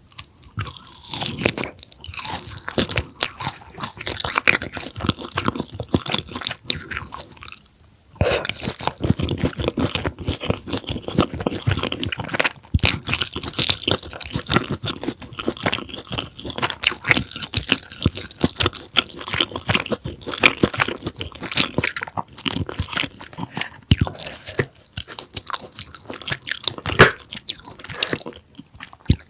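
Close-miked crunching and chewing of a crispy deep-fried pork cutlet topped with cheddar cheese: dense, irregular crunches from repeated bites, with a short pause about eight seconds in.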